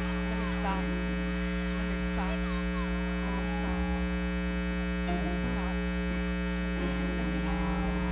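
Steady electrical mains hum, a constant buzz of stacked low tones, with faint voices from the crowd in the background.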